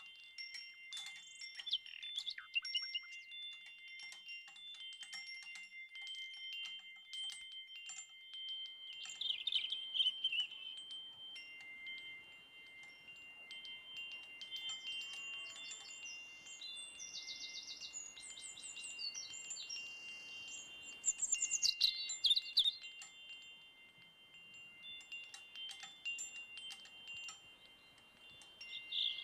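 Chimes ringing with several steady, overlapping tones and scattered light strikes. High chirps come in around ten seconds in and again from about seventeen to twenty-three seconds.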